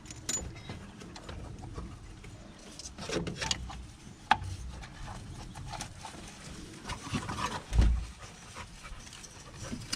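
Scattered clinks and knocks of metal parts and tools as the alternator is worked loose in the engine bay, with a sharp click about four seconds in and a dull thump near the end.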